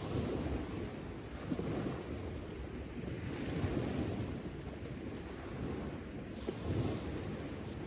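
Wind buffeting the microphone outdoors: a steady low rushing noise that rises and falls slightly.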